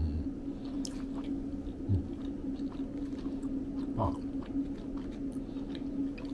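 A person chewing a mouthful of kakinoha-zushi, pressed sushi rice, with the mouth closed, with faint clicks of chewing and a few short murmured hums of tasting, near the start, about two seconds in and about four seconds in. A steady low hum runs underneath.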